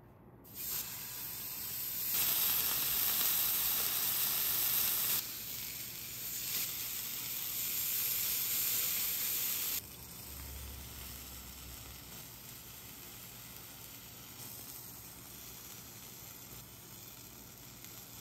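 Marinated yakiniku beef sizzling on an electric hot plate. The sizzle starts about half a second in and is loud for the first ten seconds, then drops abruptly to a quieter, steady hiss.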